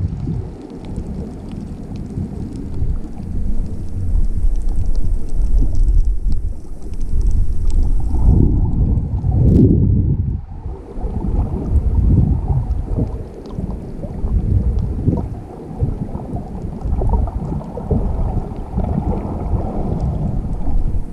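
Muffled, low rushing and rumbling of water moving over a submerged GoPro Hero 5 camera, swelling and easing every second or two, with faint ticks and a brief sharp click about ten seconds in.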